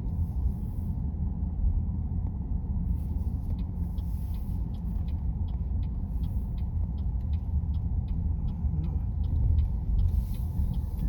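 Steady low road and engine rumble of a car heard from inside the cabin, with a turn signal ticking evenly, about three clicks a second, for several seconds in the middle.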